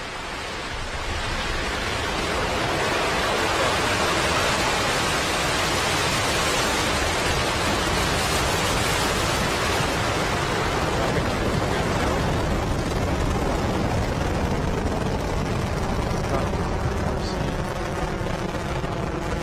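Falcon 9 first stage's nine Merlin engines at liftoff: a loud, even rushing rumble that builds over the first few seconds and then holds steady as the rocket climbs.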